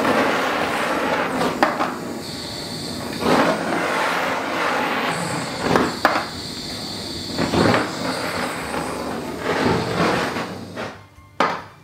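Handheld butane blowtorch burning with a steady rushing hiss as its flame heats the outside of a metal springform cake tin, with a few light knocks along the way; the hiss cuts off about eleven seconds in as the torch is shut off.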